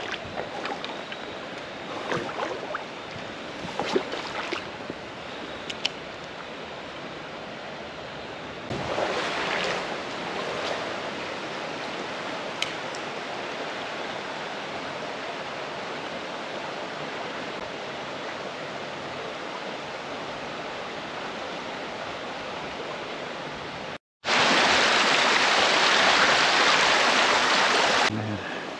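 Shallow creek water running steadily over a rocky bed, with a few light clicks in the first few seconds. Near the end the sound cuts out for a moment and comes back as a louder rush of noise for about four seconds.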